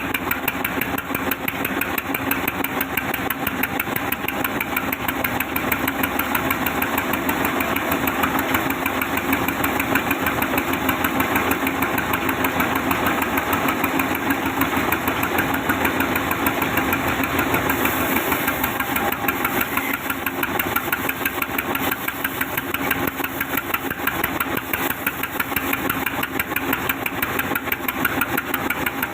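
Sawmill saw machine running steadily, a loud constant mechanical drone with a rapid even pulsing.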